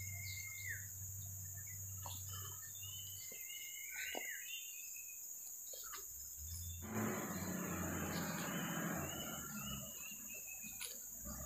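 Steady high insect chorus with scattered short bird chirps in the first half. From about seven seconds in, a few seconds of broad scuffling handling noise come in over it.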